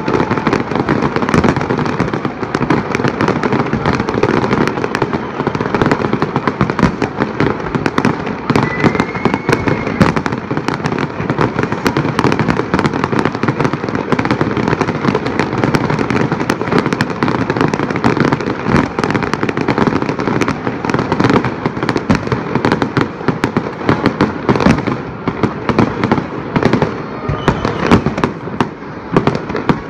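Fireworks display: a dense, unbroken barrage of bangs and crackles from aerial fireworks.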